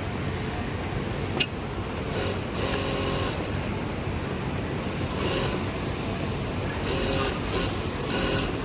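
Industrial sewing machines running in short bursts, several times, over a steady factory hum, with one sharp click about a second and a half in.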